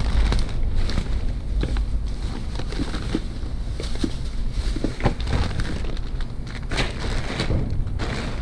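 A trash bag being handled and rummaged through, with irregular crinkling and crackling over a steady low rumble.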